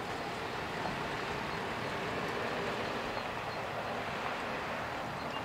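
Boeing 747-400 freighter's four jet engines at takeoff thrust during the takeoff roll, heard from a distance as a steady rushing rumble that swells slightly midway.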